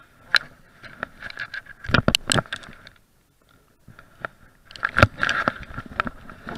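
Close rustling, scraping and knocking of clothing and gear against the body-worn camera's microphone, loudest in two clusters about two and five seconds in, with a brief lull between.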